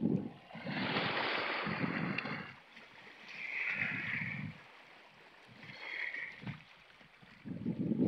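Small sea waves washing in over shore rocks and draining back: a loud surge of wash about a second in, smaller hissing washes near the middle and later, and another building near the end, with wind buffeting the microphone.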